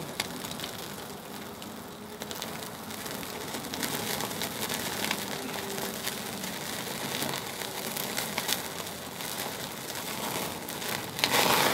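Fatty marbled steak sizzling and crackling over charcoal on a small tabletop grill, with dense popping as fat flares up on the coals. The sizzle grows a little louder partway through, with a louder rush near the end.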